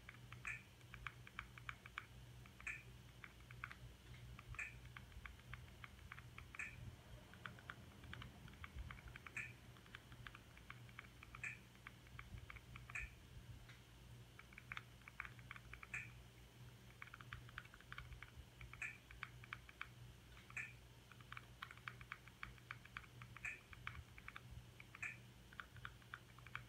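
Faint clicking of a Fire TV Stick remote's buttons, pressed in quick runs with a sharper click every second or two, as the highlight is stepped letter by letter across an on-screen keyboard. A low steady hum runs underneath.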